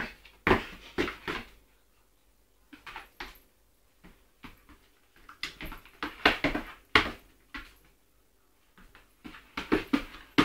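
Small poodle worrying at a dead bumblebee: short, sharp noises in quick bouts of two to five, separated by brief pauses.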